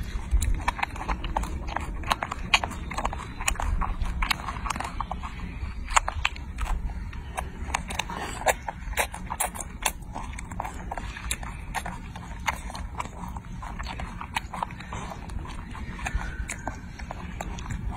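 A baby macaque chewing grapes with its mouth full, making rapid, irregular wet smacking and clicking sounds.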